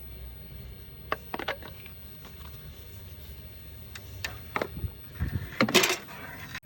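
Metal tools and parts clinking and knocking as they are handled: a few light taps, then a louder clatter near the end, over a low steady rumble.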